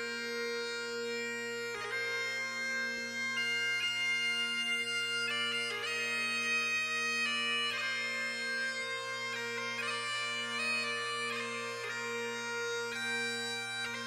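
Bagpipe music: a melody moving from note to note over steady, unbroken drones.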